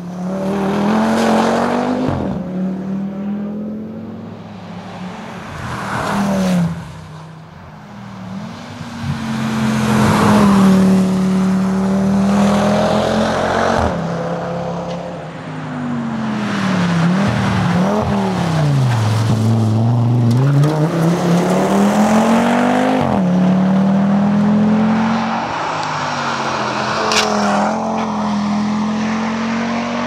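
Audi TT RS rally car's turbocharged five-cylinder engine at full throttle in several separate passes, the revs climbing through the gears, falling away low around the middle and climbing again.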